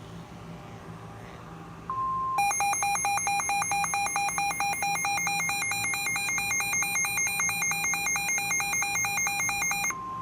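NOAA Weather Radio receiver alerting for a severe thunderstorm warning. A steady high attention tone starts about two seconds in and is cut across by the radio's own electronic alarm, a harsh rapid beeping of about seven beeps a second that lasts some seven seconds. The steady tone comes back near the end.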